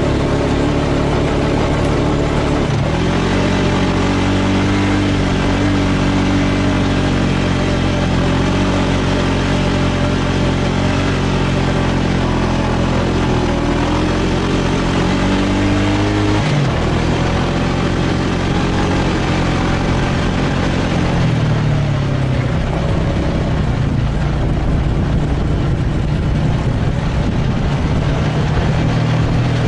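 ATV or side-by-side engine running steadily while riding over sand dunes, its pitch changing a few times as the throttle and speed change, about 3, 16 and 21 seconds in, with wind noise over it.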